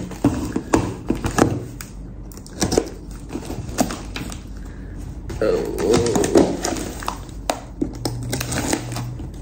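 Utility knife slicing through the tape and edge of a cardboard box, with irregular clicks, scrapes and crinkles as the box is handled; a short hum about six seconds in.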